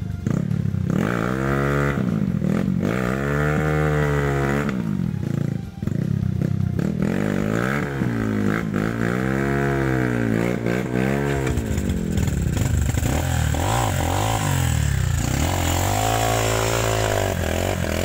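Trail motorcycle engine revving up and down under throttle, its pitch swelling and falling about six times.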